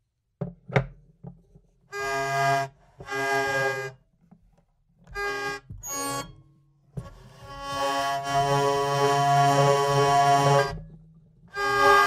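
Hurdy-gurdy, its cranked wheel bowing the strings in stops and starts: a few short sounds, then several brief bursts of a low drone with higher notes over it, then one long held sound from about seven seconds in. It breaks off and starts again just before the end.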